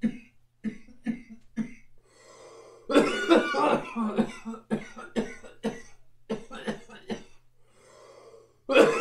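A man coughing hard in repeated fits, a harsh cough brought on by a hit of concentrate vapour from an electronic dab rig. There are a couple of long breathy exhales between the fits.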